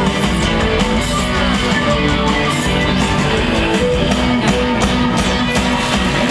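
A rock band playing, led by electric guitar with bass and drums.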